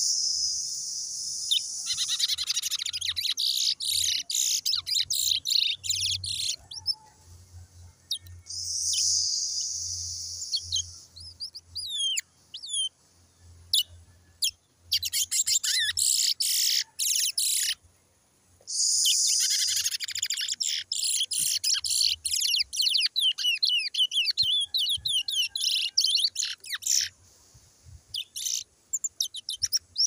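Towa-towa (lesser seed finch) singing in long, rapid, twittering bursts of high notes, about four phrases separated by short pauses, with scattered single notes in between.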